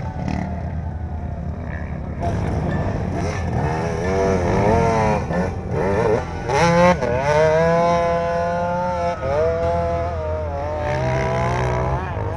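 Dirt bike engine revving hard as it climbs a steep sand hill. Its pitch rises and falls several times as the throttle is worked, then sweeps up and holds high revs for a couple of seconds before dropping back.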